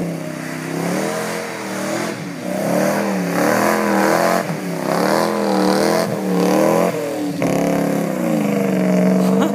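Pickup truck engine revving hard, its pitch rising and falling over and over as the tyres spin through mud and water. About seven and a half seconds in it drops sharply, then climbs and holds high and steady.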